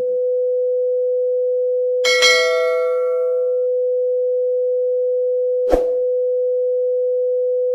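A steady electronic tone held at one pitch, like a dial tone. A single bell-like ding rings about two seconds in and fades over a second or so, and a short sharp click comes near six seconds.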